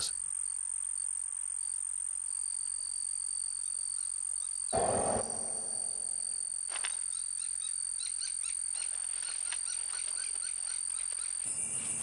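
Steady high-pitched insect trilling with faint rhythmic chirps, and a brief louder rustle about five seconds in.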